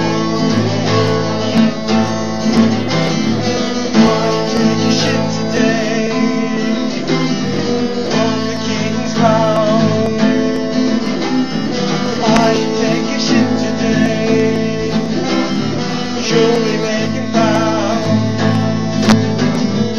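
Guitar music: a strummed acoustic guitar with an electric guitar, playing a passage of a jaunty mock-medieval ballad with no words.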